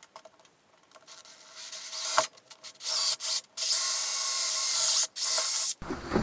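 Hand-tool rubbing, a hissy rasping like filing or sanding. It comes in short strokes at first, then runs as a longer continuous stretch that stops abruptly near the end.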